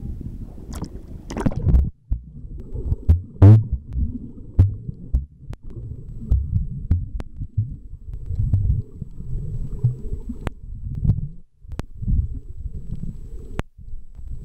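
Water sloshing and rumbling, heard muffled through a camera held underwater, with a few sharp clicks now and then.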